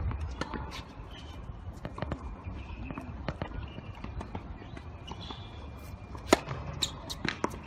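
Tennis match court sounds: scattered knocks of a tennis ball and footsteps over a low outdoor rumble, with one sharp ball strike about six seconds in and a few more knocks near the end.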